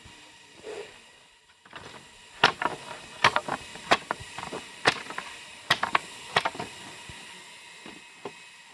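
A blade chopping dry branches of a dead tree: six sharp strikes a little under a second apart, beginning about two seconds in, with lighter knocks between them, then a few faint knocks near the end.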